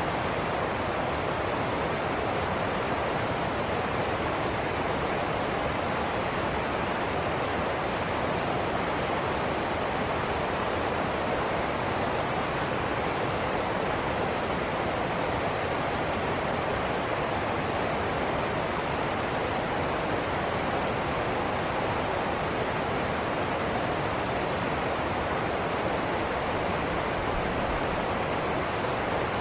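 River water rushing over rocks in shallow cascades and rapids: a steady, even rush.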